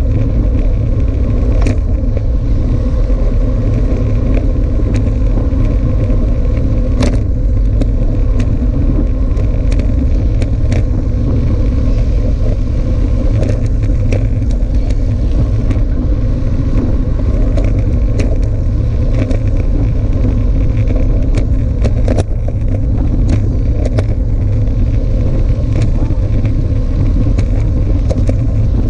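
Heavy wind rumble on the microphone of a camera riding on a moving road bike, mixed with tyre-on-asphalt noise from the bunch of road bikes, with a few scattered sharp clicks.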